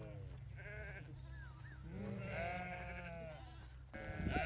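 Flock of sheep bleating: several overlapping calls, the longest about two seconds in and a louder one near the end, over a steady low rumble.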